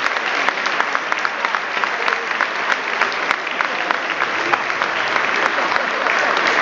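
A large crowd applauding steadily, many hands clapping at once, growing a little louder in the second half.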